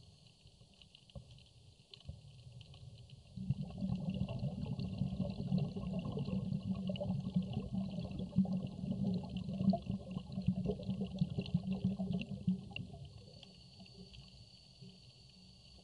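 Underwater sound over a coral reef: a faint steady crackle throughout. From about three seconds in, a loud low rushing, bubbling rumble of water, which fades away about thirteen seconds in.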